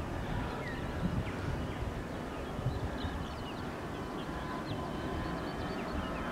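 Distant turbofan engines of a Bombardier Global 5000 business jet running on the runway, a steady far-off rumble with a faint whine. Small birds chirp over it.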